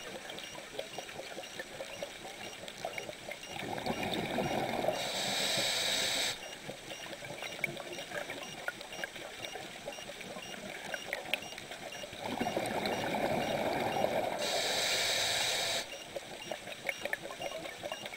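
Underwater sound through a diver's camera: two breaths on a scuba regulator, about nine seconds apart, each a rush of bubbling and hissing lasting about three seconds, over a steady faint crackle of the water.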